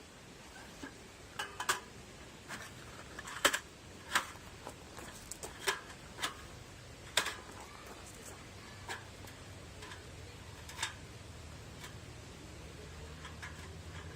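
Sheet-metal chimney pipe pieces of a folding wood stove being fitted together by hand: scattered metallic clicks and taps, thicker in the first half and thinning out after.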